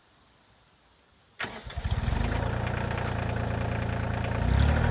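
Kioti CK2610 tractor's three-cylinder diesel engine starting: the starter cranks briefly about a second and a half in, the engine catches and settles into a steady idle, growing a little louder near the end.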